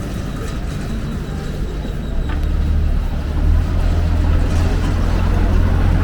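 Street noise, with the low rumble of a large passing vehicle building about two seconds in and growing louder.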